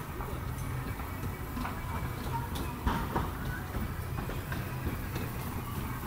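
Bumper cars running on their track: a steady low electric hum with scattered clacks and knocks, the sharpest about three seconds in.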